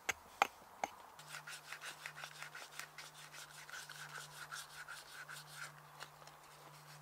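A knife whittling a small piece of wood, shaving it in quick short scraping strokes, about five a second, as a wooden spoon or scoop is carved. The strokes follow a few light knocks in the first second.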